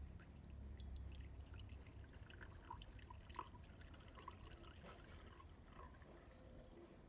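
Faint sound of water being poured from a plastic bottle into a glass tumbler: scattered small splashes and drips over a low hum.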